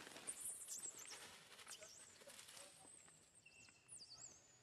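Leaves brushing and footsteps through undergrowth, fading after the first second or so, with faint high chirping calls that glide up and down.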